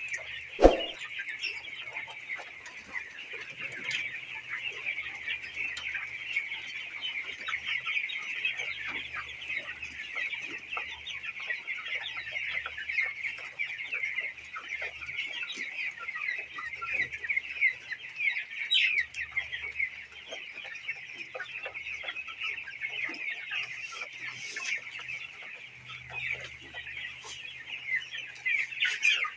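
A large flock of young broiler chickens peeping and clucking continuously, many high calls overlapping into a steady chorus. A single sharp knock sounds about a second in, the loudest moment.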